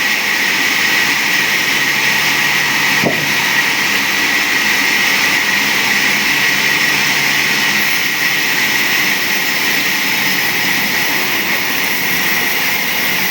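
A machine running steadily: a constant hiss with a steady high whine, its load never changing.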